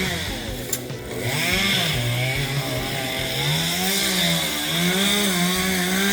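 Chainsaw running at high revs, its engine pitch repeatedly dropping and rising again as it bogs and recovers in the cut.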